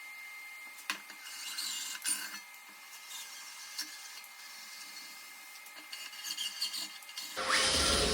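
Hand-turned thread tap cutting threads in steel: intermittent scratchy rasping of metal on metal with a couple of sharp clicks. Near the end a sudden louder burst of noise with a steady hum cuts in.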